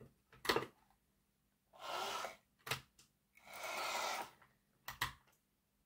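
Small electric motor of a Hornby Class 56 OO gauge model locomotive whirring as the repaired loco runs along the test track in two short bursts, with a few light clicks between them.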